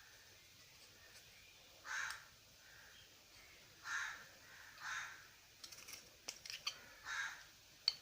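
A crow cawing four times, short faint caws a second or two apart, with a few light clicks in between near the end.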